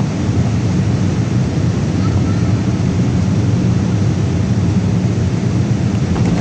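Steady cabin noise of a Boeing 787 Dreamliner airliner in flight or on the landing run: engine and airflow noise heard from inside the passenger cabin, even and unbroken, heaviest in the low end.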